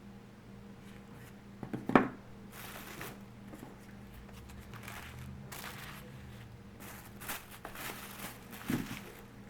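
Packaged wax melts being handled and set down: crinkling and rustling, with a sharp knock about two seconds in and a softer one near the end.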